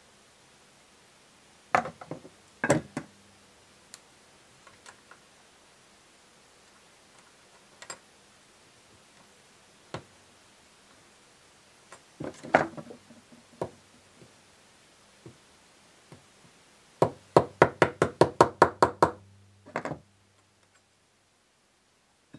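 Plastic hammer tapping a tight-fitting plastic standoff down onto a binding post: a few single knocks, then a quick run of about a dozen knocks, roughly six a second, near the end.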